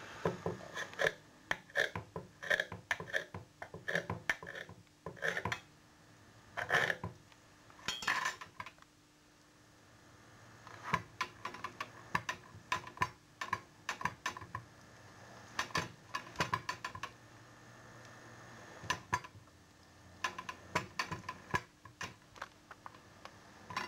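Knife cutting and trimming raw chicken breast on a chopping board: irregular runs of short clicks and taps as the blade meets the board.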